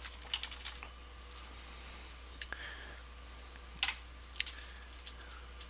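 Computer keyboard keys clicking as a command is typed: a quick run of light clicks at the start, then scattered clicks with two sharper ones about four seconds in, over a steady low hum.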